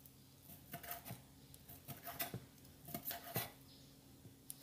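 Kitchen knife slicing pork belly on a wooden cutting board: faint, irregular knocks of the blade meeting the board, roughly two a second.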